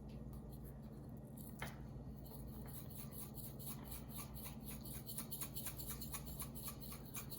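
Glitter being shaken out of its container: quick, faint rattling ticks, several a second, starting about two seconds in and getting busier toward the end, over a steady low hum.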